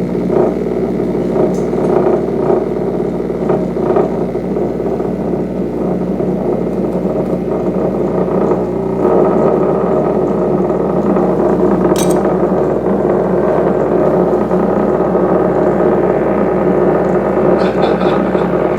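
Sundown Audio SA-8 subwoofer wired straight to a wall outlet, buzzing loudly and steadily on mains AC as it is overdriven to destruction. The buzz thickens and grows a little louder about halfway through.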